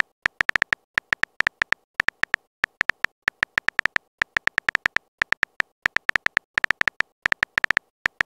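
Simulated phone keyboard typing sound: rapid, irregular clicks with a slight beep to each, several a second, as a message is typed out letter by letter.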